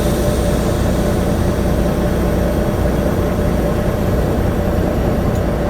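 Semi-truck diesel engine running with a steady low rumble, heard from inside the cab.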